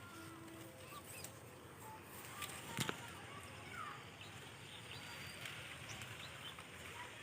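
Faint outdoor ambience with small birds chirping in many short, quick notes, and a single sharp click a little under three seconds in.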